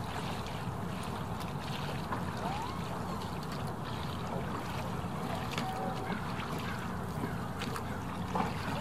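Small skiff being rowed: a steady wash of water and wind, with a few light knocks.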